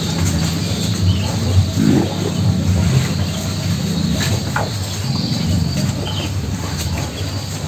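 Cattle munching and crunching chopped green grass stalks in a feed trough, a steady rough chewing sound, with small birds chirping faintly.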